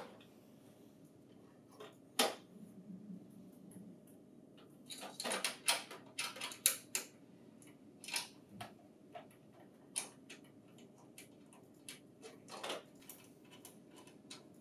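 Light metallic clicks and taps as a steel mounting bracket is fitted against a printer's side and its screws are turned in by hand, coming irregularly and most thickly about five to seven seconds in and again near twelve seconds.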